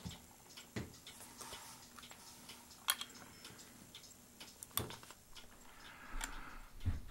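Faint, sharp clicks and light taps, about six of them at uneven intervals, over quiet room tone, with a soft low thump near the end.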